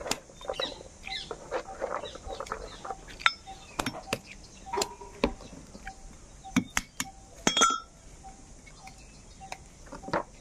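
Roasted cashew seeds in their shells being cracked open: irregular sharp knocks and clinks as an iron fire blow-pipe strikes the seeds against a stone.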